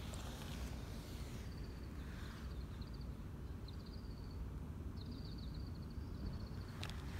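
Steady low outdoor rumble with a small bird's thin, high chirps coming in short runs, several times over. A couple of sharp rustling clicks near the end.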